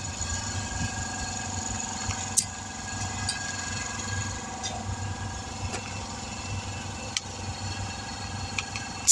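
A motor runs steadily with a constant hum, under scattered light clicks and knocks of hand work on the tire and tools. A sharper knock comes at the very end.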